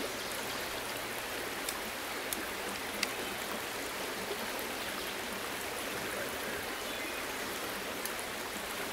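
Shallow river running over rocks, a steady rushing babble of water. A few light clicks sound over it.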